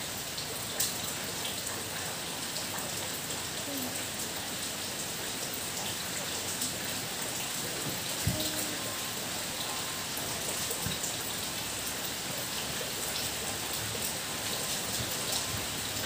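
Steady rain pattering, an even hiss full of tiny drop ticks, with a single dull thump about halfway through.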